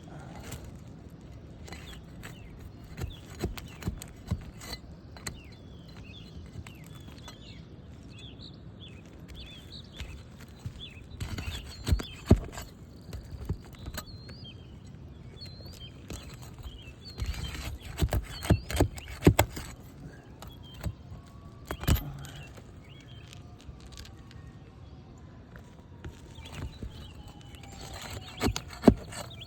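Scattered sharp clicks, taps and scrapes of a hand tool prying roofing nails out from under an asphalt three-tab shingle, coming in short clusters with pauses between. Small birds chirp in the background.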